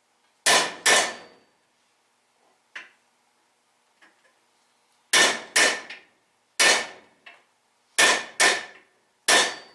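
Hammer blows on steel, driving wheel studs into the front hub and brake rotor. The strikes come mostly in quick pairs, about a dozen in all, each with a short metallic ring, and there is a pause of a few seconds after the first pair.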